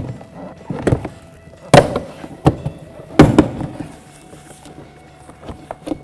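Plastic retaining clips of a Cadillac SRX front door panel popping loose one after another as a trim tool pries the panel away from the door, four sharp snaps in the first three and a half seconds, then two lighter ones near the end.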